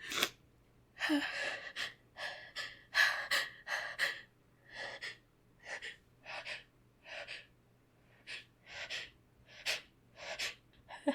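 A woman's quick, shaky gasping breaths, about one or two a second, fading after the first few seconds, with a small catch in the voice about a second in: the hitching breaths of a sneezing fit, building toward the next sneeze.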